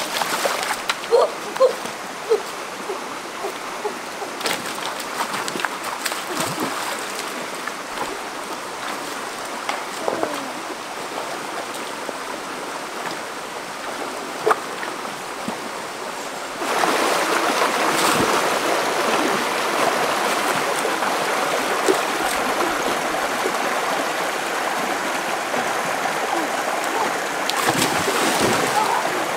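A shallow rocky stream running, with splashing as people wade through the water. The water noise jumps louder about two thirds of the way through.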